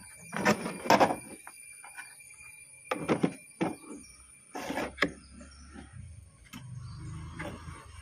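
Hands handling the plastic seat base and a seat-open plunger switch of an electric scooter: a few sharp plastic knocks and rattles, then a low scraping rub near the end, over a faint steady high whine.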